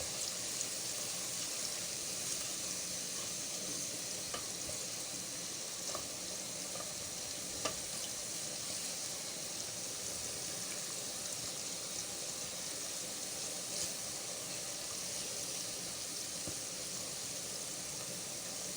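Sliced onions frying in hot groundnut oil in a pot: a steady sizzle, with a few light clicks of a spoon stirring them.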